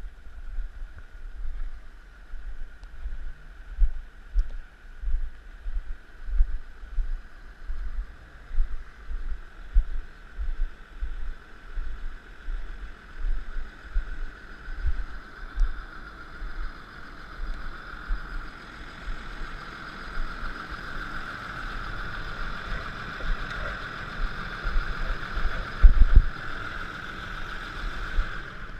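Claas Axion 840 tractor running while ploughing, with a steady whine that grows louder through the second half and irregular low thumps throughout.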